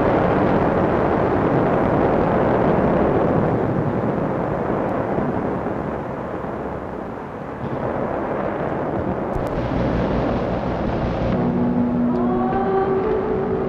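Opening of an ambient soundtrack: a steady rushing wash of noise that dips slightly about halfway through, then several long held notes come in over it about eleven seconds in.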